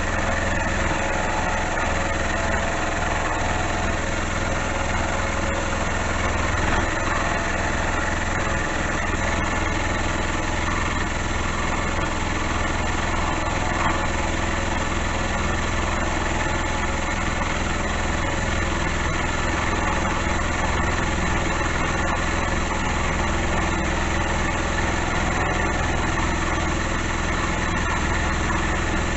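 Small bench milling machine running steadily, its sharp end-mill taking a continuous cut in the workpiece while a homemade windscreen-wiper-motor power feed moves the table at a constant rate.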